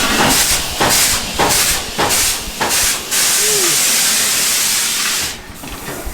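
Loud hissing from the ride's special effects: short bursts about twice a second for the first three seconds, then a steady hiss that falls away a little after five seconds in.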